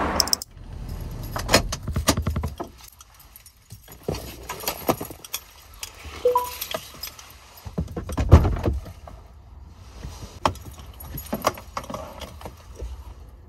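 Keys jangling and a bag strap and clothing rustling, with scattered clicks and knocks, inside a parked car's cabin. A brief beep sounds about six seconds in, and a low thump comes a little after eight seconds.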